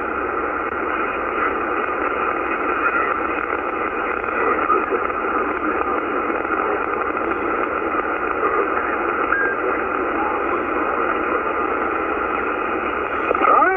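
Steady static hiss from a CB radio receiver on 11 meters with the squelch open and no station talking, heard through the radio's narrow speaker band.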